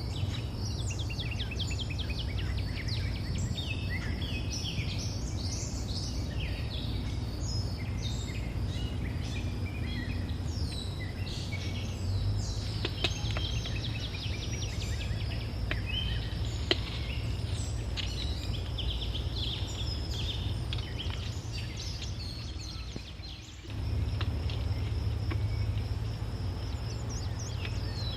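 Forest ambience: many birds chirping and trilling, some in rapid runs of notes, over a steady low rumble. The sound drops away briefly about 23 seconds in, then comes back.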